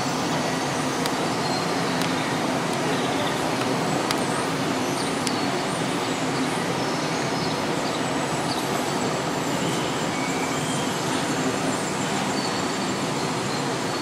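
Steady rolling rumble of Märklin AC HO-scale model trains running on a large layout, wheels and pickup sliders clattering on the track.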